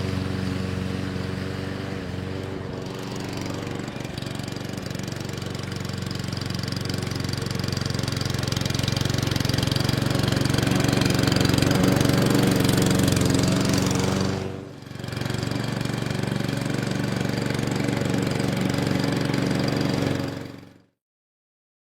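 The 173cc engine of a Webb R460ES rotary lawnmower running steadily. It dips briefly about two-thirds of the way through, then cuts off abruptly near the end.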